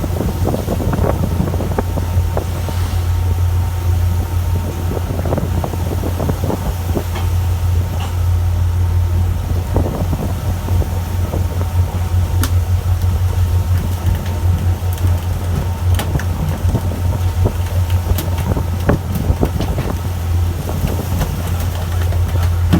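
Fishing boat's engine running with a steady low drone, with scattered sharp knocks over it.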